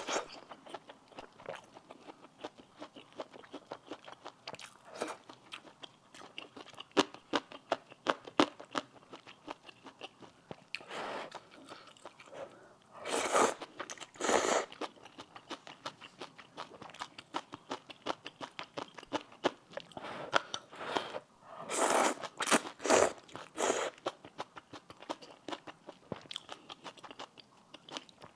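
A person eating spicy river snail rice noodles close to a clip-on microphone: steady wet chewing clicks throughout, with several louder slurps of noodles about halfway through and again about three-quarters in.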